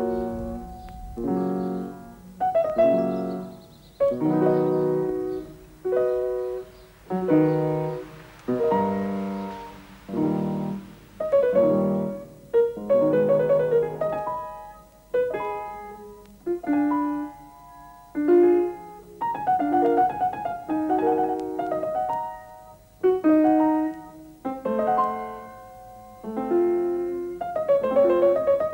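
Slow solo piano music: chords struck about once every one to two seconds, each left to ring and fade.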